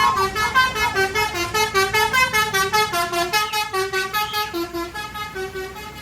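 Indonesian 'telolet basuri' bus horn playing a fast, jumpy multi-note melody of short notes, several a second, fading steadily as the bus moves away.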